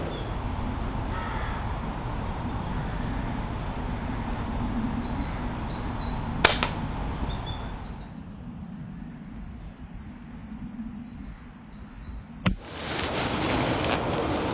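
Small birds chirping over steady wind noise outdoors, with a sharp crack about six and a half seconds in and another near the end.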